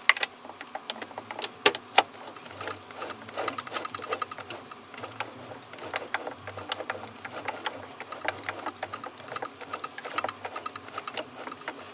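Irregular clicking and ticking as the chuck of a TV16 lathe is turned by hand, driving an M6 tap, held in the tailstock drill chuck, into a duralumin workpiece to cut a thread.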